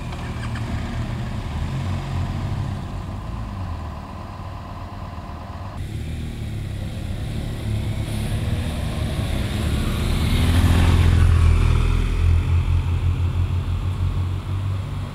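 A motor vehicle's engine running with a steady low rumble. The sound changes abruptly about six seconds in and gets louder around ten to twelve seconds in.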